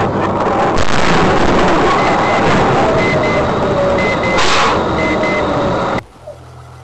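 Loud road and vehicle noise with a short double beep repeating about once a second and a brief hiss-like burst about four and a half seconds in; the noise drops away abruptly about six seconds in.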